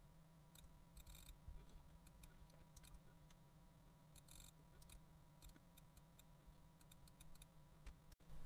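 Near silence, with faint, scattered clicks of a computer mouse.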